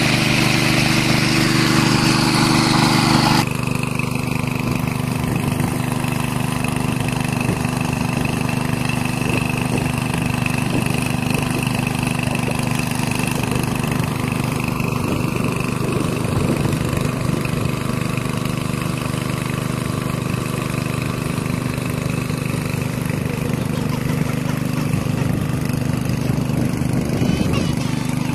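Small petrol water pump engine running steadily at a constant speed. For the first few seconds water gushes loudly from its discharge hose, then cuts off abruptly, leaving the engine alone.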